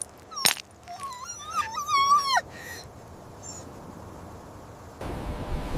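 A dog whining in pain from a hurt paw: one high, wavering whine lasting about a second and a half that drops in pitch at the end, after two sharp clicks. A steady rushing noise starts near the end.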